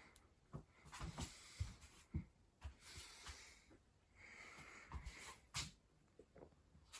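Faint breathing with scattered small knocks and clicks.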